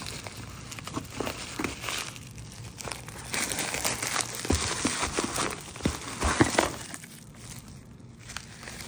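Bubble wrap and a cardboard box crinkling and rustling as a part is unwrapped by hand, with small knocks mixed in; the rustling grows louder in the middle.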